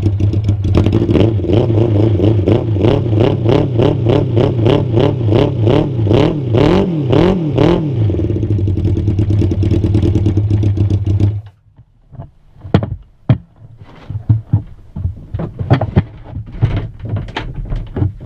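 Suzuki Bandit's inline-four engine running loud through a straight-pipe exhaust, blipped up and down in a few quick revs partway through. It cuts off suddenly about eleven seconds in, followed by scattered clicks and knocks.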